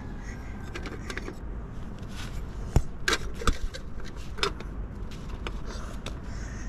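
A few sharp clinks and knocks of a metal kettle and a plastic jar being handled, clustered a little after the middle, over a steady low rumble.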